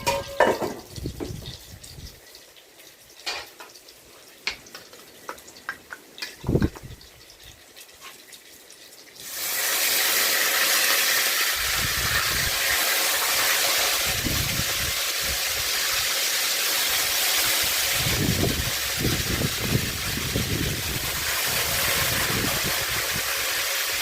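Hot oil in a Dutch pot crackling with scattered small pops. About nine seconds in, a loud, steady sizzle starts suddenly as chicken back pieces go into the oil to brown.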